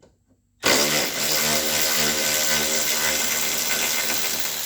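Electric power tool motor running steadily for about four seconds, starting about half a second in and winding down at the end, as a ground-wire bolt under the dash is undone.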